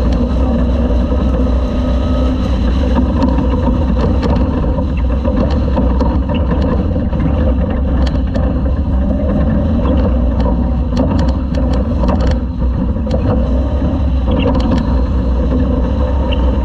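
Class 2000 off-road race truck running hard at speed, heard from on board, a dense steady engine-and-road rumble. Scattered sharp clicks and knocks run through it, most of them in the middle stretch.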